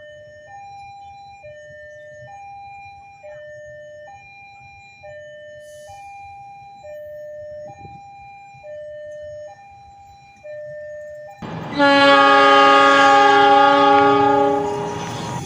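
Railway level-crossing warning signal sounding a two-tone alternation, a lower then a higher tone about every second, over a faint rumble. Then, about three quarters of the way in, a much louder multi-tone train horn blares for about three and a half seconds and fades slightly before cutting off.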